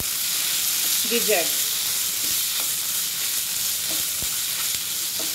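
Raw chicken gizzards and ground masala paste sizzling in hot oil in a nonstick pan while being stirred with a spatula, with a few light scrapes and taps of the spatula against the pan.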